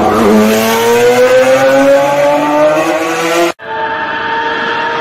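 Racing car engine accelerating, its note rising slowly, then cut off suddenly about three and a half seconds in; a steady, level engine note takes over straight after.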